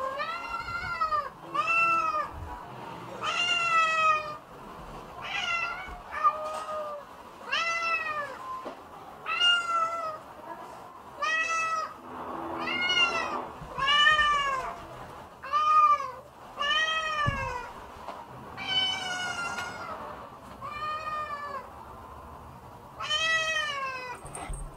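Japanese Bobtail cat meowing over and over, about one meow every second or so, each call rising and then falling in pitch.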